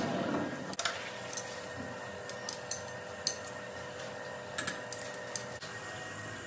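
A handful of light metallic clinks and taps, scattered irregularly over several seconds, over the steady hum of a running machine.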